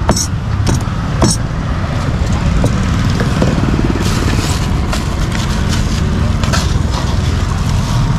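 Cleaver chopping grilled pork on a chopping board, three sharp strikes in the first second and a half. The blade then scrapes the pieces across the board with a few light knocks, under a steady engine rumble from road traffic that builds up and becomes the loudest sound.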